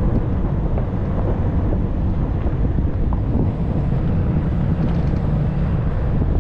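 Steady low rumble of wind buffeting the microphone, mixed with the running noise of a Dodge Ram 3500 pickup driving along a dirt desert track.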